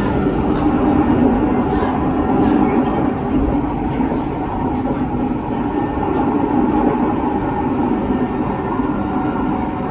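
Train passing close by a level crossing: a steady, loud running noise with the drone of its engine.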